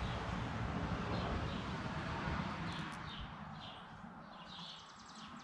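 Outdoor ambience: small birds chirping repeatedly, a few times a second from about halfway in, over a steady rushing noise that fades away. Near the end a fast, high, even ticking starts.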